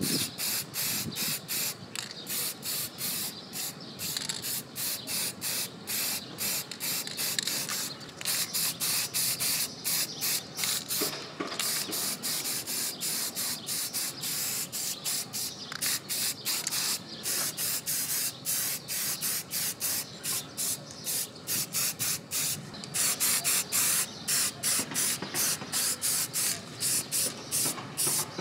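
Aerosol spray can hissing in many short, repeated bursts, about two or three a second, as it sprays the drill's plastic housings.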